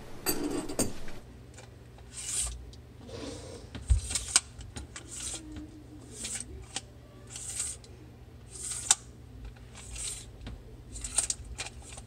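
An adjustable wrench and hands working a plastic sink drain trap: a run of short scrapes and rubs, roughly one a second, with sharp clicks here and there.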